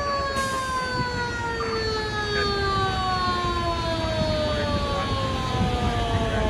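Fire engine siren winding down, one long wail falling slowly and steadily in pitch, over the low rumble of idling fire apparatus.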